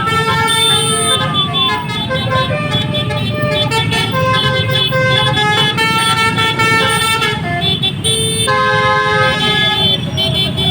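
Basuri 'telolet' multi-tone bus air horn playing a tune of stepped notes, with a sliding note in the first couple of seconds, over the rumble of the bus's engine.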